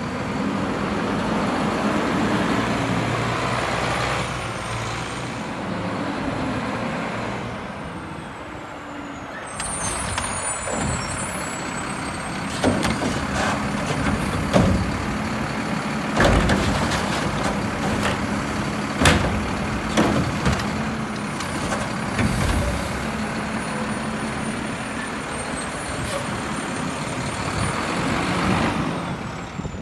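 Front-loading garbage truck with a Curotto Can arm collecting curbside carts: the diesel engine runs steadily under hydraulic load, with repeated clanks and bangs between about 12 and 23 seconds as carts are grabbed, tipped and set back down, and air-brake hisses as the truck stops and moves on.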